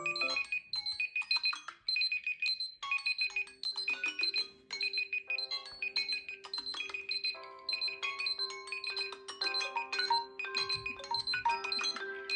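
Several smartphone alarm tones sounding at once: quick groups of high beeps repeating over melodic, chime-like ringtone notes, with a low held note joining about three seconds in.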